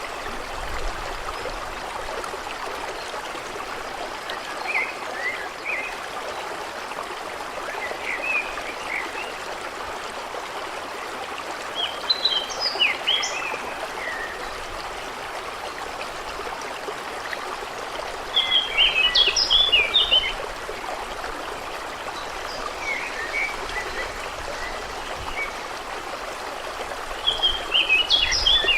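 A stream running steadily, with small birds singing in short bursts of chirps over it, the strongest songs coming about twelve seconds in, around nineteen seconds and near the end.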